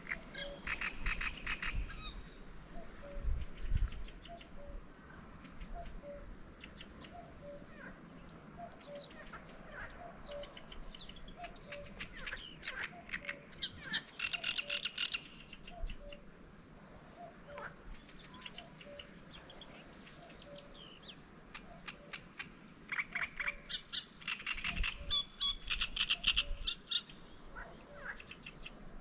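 Lakeside frog and bird calls. Bouts of fast, rattling calls come and go three times over a steady, slower run of lower notes.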